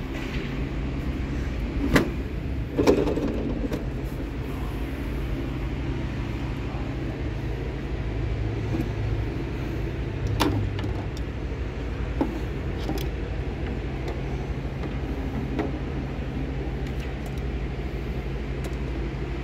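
Steady low background hum with scattered clicks and clunks of a steel tool chest and its sockets and ratchet being handled, the loudest knock about three seconds in.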